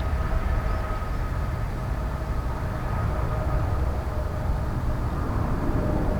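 Steady low rumble of distant jet aircraft engines around the airport, with a faint steady whine over it.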